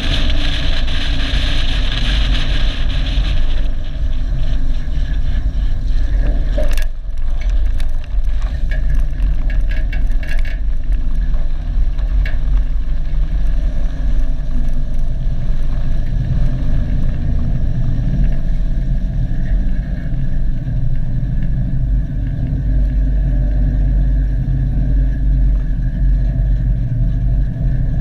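Cammed 5.3-litre V8 of a GMC Sierra heard from low on the truck's side. Wind and road noise fade in the first few seconds as the truck slows, a sharp click comes about seven seconds in, and tyres crackle over gravel for a few seconds. The engine then runs deep and low-pitched at crawling speed and near idle.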